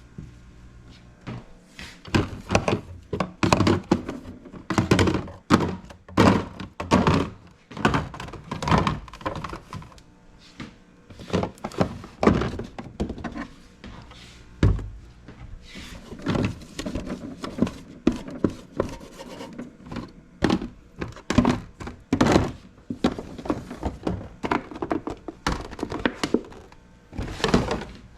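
Irregular knocks, thunks and clatter of household items being handled and set down during kitchen cleaning, with a door-like thunk here and there.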